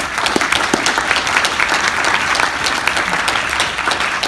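Audience applauding: many hands clapping at once, steady and loud, with a few sharper claps standing out close by.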